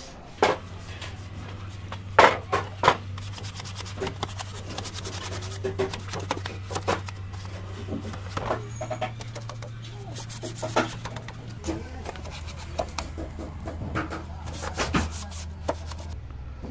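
Hand work on a wooden sewing machine base box: rubbing and scraping as the yellow coating is worked by hand, with scattered sharp knocks and clicks, over a steady low hum.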